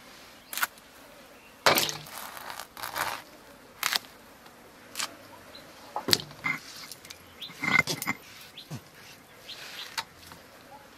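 Ridge gourd being sliced on a bonti (curved floor blade), the pieces dropping into a steel bowl of water. It comes as a string of irregular sharp clicks and knocks, some ringing briefly off the metal bowl.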